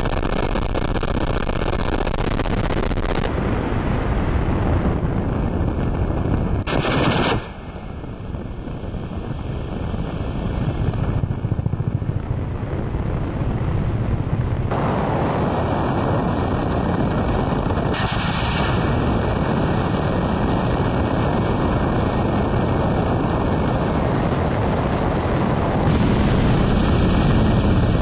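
Ka-52 attack helicopter's rotors and engines running loud and steady, heard from a camera mounted on the fuselage, with wind noise on the microphone. The sound shifts abruptly several times.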